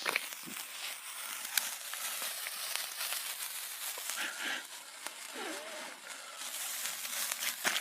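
A lit smoke bomb hissing steadily as it burns, with scattered small crackles and clicks.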